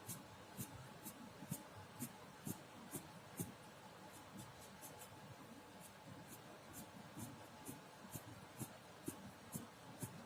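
Palette knife working acrylic paint onto a board canvas in short strokes: faint scrapes and taps about two a second.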